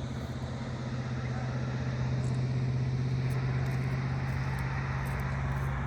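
Motor vehicle engine running steadily: a constant low hum with a noisy haze over it.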